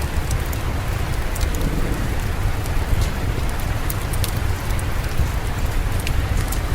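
Steady rain with a deep, even rumble underneath and scattered sharp crackles from a wood fire in a fireplace.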